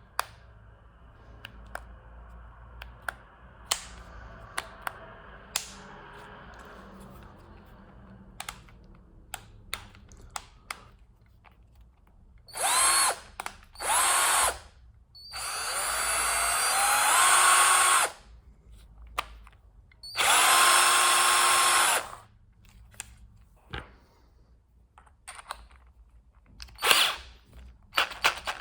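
Zitrek Green 12-Li cordless drill-driver motor running in several short bursts, each spinning up with a rising whine; one longer run speeds up gradually over a few seconds as the trigger is squeezed in. For the first twelve seconds or so there are only scattered light clicks of the tool being handled.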